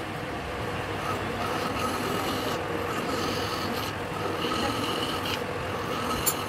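Triangular hand file rasping steadily against a two-start thread turning in a lathe, deburring the sharp edges that thread cutting left on the crests, with the lathe running underneath.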